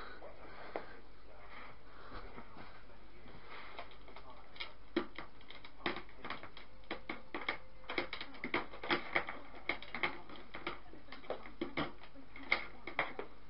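Irregular light clicks and knocks of hands handling the vacuum cleaner and its mains cable, sparse at first and coming thick and fast in the second half, over a steady low background hiss.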